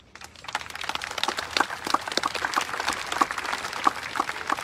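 Crowd applauding, the clapping starting right away and building to a steady level within the first second.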